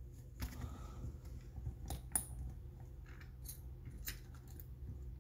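Light metal clicks and scrapes of a steel starter Bendix drive being handled while its retaining clip and collar are worked into place. The clicks are faint and irregular, with the sharpest one about two seconds in.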